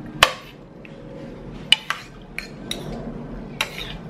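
Fork and spoon clinking and scraping against a plate: about six sharp clinks, the first and loudest with a short ring.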